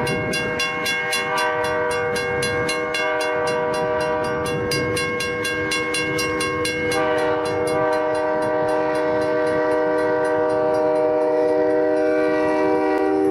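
Multi-tone train horn held as one long chord, its tones shifting about halfway through, over a fast, even clicking that fades out after about eight seconds.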